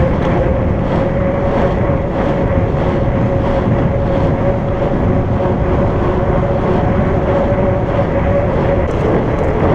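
Fat bike tyres (4.8-inch Surly Knards) rolling fast on pavement, a steady humming drone, with wind rumbling on the microphone.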